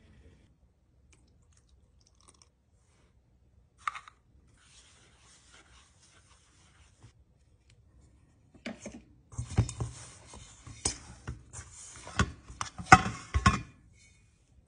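Glutinous rice flour and coconut milk being mixed into dough in a stainless steel bowl: one sharp knock about four seconds in and a faint scraping, then from about halfway a stretch of wet, sticky squishing and rubbing of the dough by hand with many sharp knocks against the metal bowl.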